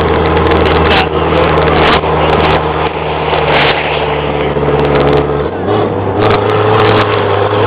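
Pickup truck engine running under way while towing, its note stepping up about five and a half seconds in, over a heavy rushing noise with scattered short knocks.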